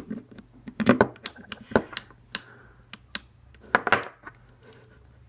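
Parts of a KWC M1911A1 gas blowback airsoft pistol being handled and fitted, making a series of sharp, irregular clicks and knocks, several close together in the middle.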